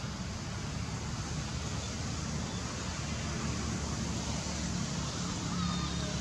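Steady outdoor background noise with a low rumble and no distinct event, with a faint short chirp near the end.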